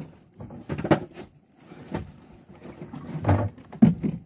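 A few short, dull knocks and thumps at irregular intervals, the loudest near the end.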